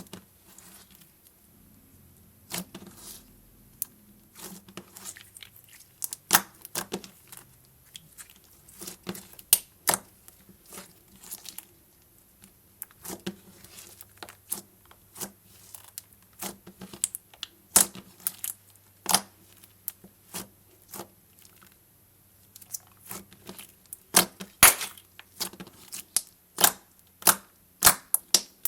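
Slime being squeezed and stretched by hand, giving irregular sticky clicks and crackling pops in clusters with short pauses between.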